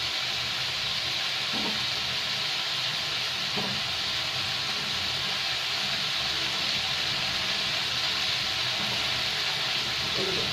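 Potatoes, green peas and white radish frying in oil in a kadhai over a high gas flame: a steady sizzle, with a couple of faint ticks in the first few seconds.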